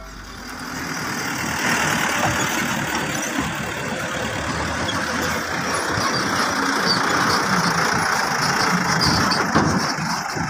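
Diesel dump truck engine running steadily as the truck drives past at close range and pulls away over a dirt track.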